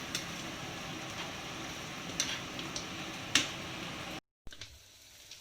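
Bopis sizzling steadily in a frying pan, with a few sharp clicks of a utensil against the pan. The sound cuts off abruptly about four seconds in and comes back quieter.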